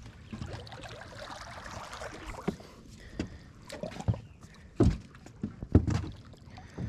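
Scattered knocks and thumps against a kayak's hull over a faint trickle of water, the loudest two in the second half.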